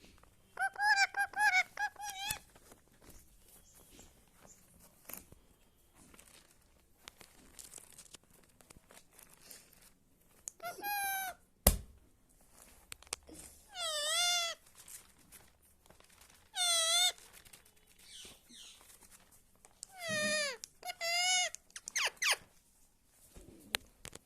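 Pet parrot calling in short, wavering, high-pitched calls, about six of them spaced through the stretch, with one sharp click about halfway.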